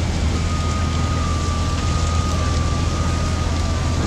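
Steady low drone of fire engines running at a large building fire, under a rushing hiss of flames and hose spray; a thin steady whine comes in shortly after the start.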